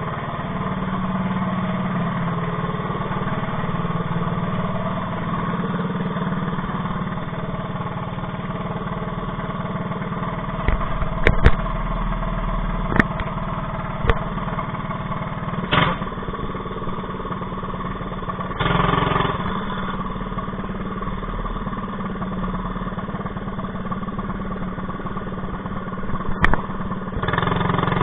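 Predator 212 single-cylinder four-stroke engine on a Mega Moto minibike running steadily, its governor bypassed with a zip tie on the governor spring. A few sharp clicks and knocks come about halfway through, and there is a short louder rush twice in the later part.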